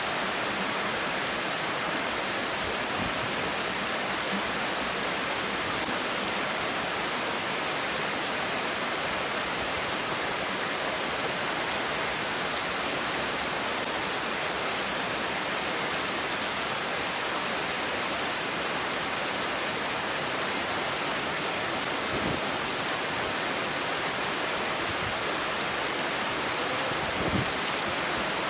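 Steady rain falling, an even unbroken hiss, with one brief faint knock about a second before the end.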